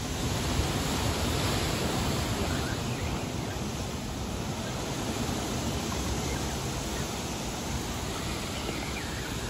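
Ocean surf washing against a rocky shore: a steady rush of noise.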